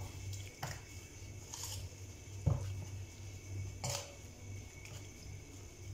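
A plastic utensil stirring and pressing wet, soaking dried fumbwa leaves in a stainless steel bowl, with about four sharp clicks and knocks against the bowl, the loudest about two and a half seconds in. A steady low hum runs underneath.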